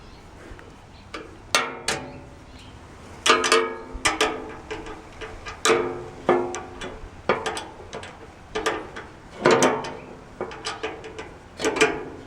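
Irregular metallic clanks and clicks as a screwdriver or wrench works a screw into the grill's sheet-metal body, about ten knocks that each ring briefly.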